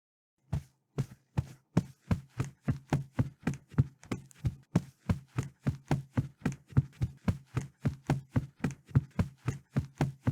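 Foley footsteps at a quick, even pace, about two to three steps a second, starting about half a second in; many steps land as a heel hit followed by a softer toe hit.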